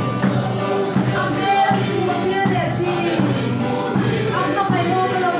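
A congregation singing a hymn together, many voices in unison without a break.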